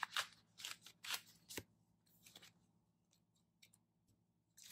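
A few short, faint crisp paper-handling sounds: photo pages and pocket pages being handled and fitted into a ring-bound planner.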